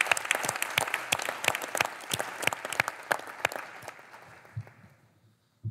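Audience applauding, dense clapping that thins out and dies away about five seconds in.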